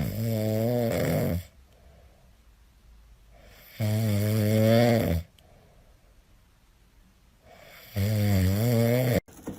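Snoring: three long snores about four seconds apart, each a pitched, wavering rasp lasting over a second.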